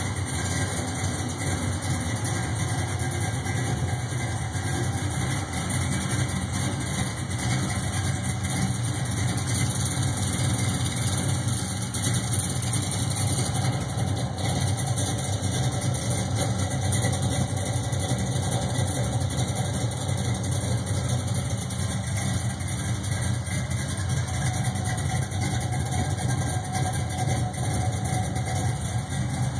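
Chevrolet 5.3-litre LS V8 idling steadily through a newly fabricated exhaust of Kooks headers, a 3-inch X-pipe and two-chamber Flowmaster mufflers with turn-down tips.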